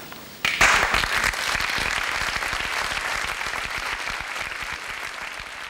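Audience applause that starts suddenly about half a second in, loudest at first and easing off slightly.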